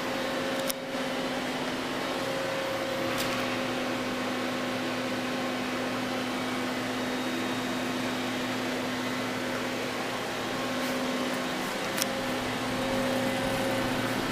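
Doosan Puma 600L CNC lathe running under power: a steady mechanical hum with a constant low tone, broken by a few sharp clicks.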